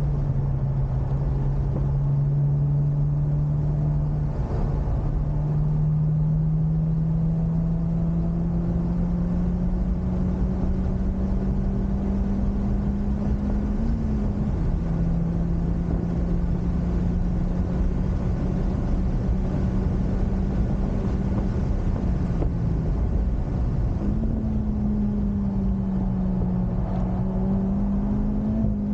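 Honda Civic Type R's turbocharged four-cylinder running under load at track speed, heard over constant road and wind noise. Its note holds fairly steady and climbs slowly, with brief dips about halfway, about three-quarters through and near the end.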